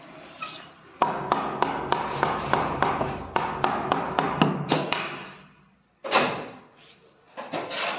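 A quick run of sharp taps, about three a second, over a steady noise that fades out after a few seconds, then a louder knock or burst about six seconds in.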